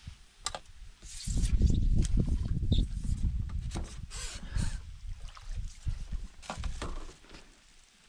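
A fish landing net dipped into lake water to release a barbel: short splashing and sloshing, with a knock near the start and low rumbling handling noise.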